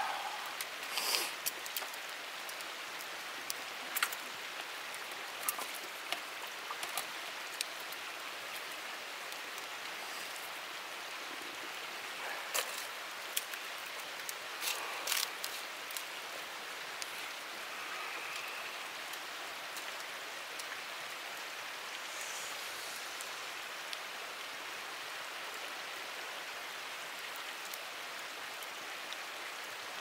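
Wood campfire crackling, with scattered sharp pops over a steady hiss; the pops come mostly in the first half.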